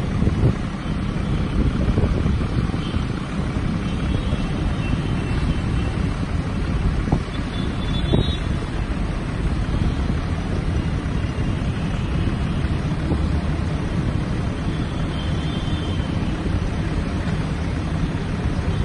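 Wind buffeting the microphone over a steady low rumble, with the faint whir of a BMW's electric-hydraulic retractable hardtop folding closed beneath it.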